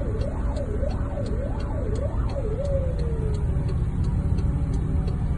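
Emergency vehicle siren in a fast up-and-down wail, about two sweeps a second, that stops about two and a half seconds in and trails off in a falling tone. It sounds over a heavy, steady low rumble, with regular faint ticks throughout.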